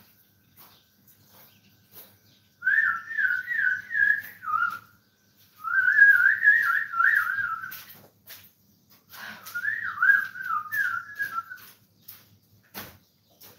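Whistling in three wavering phrases, each a couple of seconds long, the pitch rising and falling quickly within each phrase, with short pauses between them.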